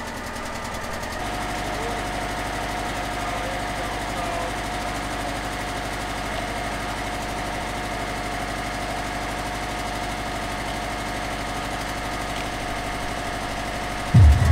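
Zamboni ice resurfacer running with a steady mechanical hum. Near the end a much louder low rumble starts suddenly as the machine gets going.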